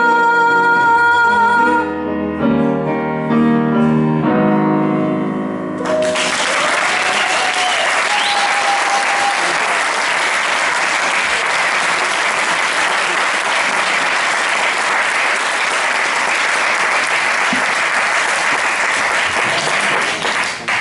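A woman's voice holds the song's final note over grand piano, the piano plays closing chords, and about six seconds in an audience breaks into applause that goes on, with a brief cheer about two seconds after it starts.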